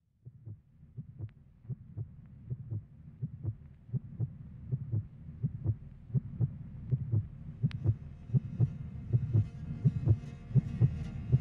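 Film soundtrack of a low, heartbeat-like thudding pulse, roughly two to three beats a second, growing louder. High sustained tones join in over the last few seconds.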